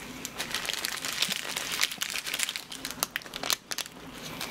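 Paper wrapper crinkling in the hands around a toast sandwich: a dense run of crackles that stops abruptly about three and a half seconds in.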